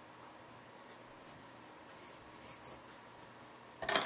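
Compass pencil scratching lightly on paper in a few short strokes about two seconds in, after a quiet start. Near the end comes a louder rustle and clicking as the compass is handled over the paper.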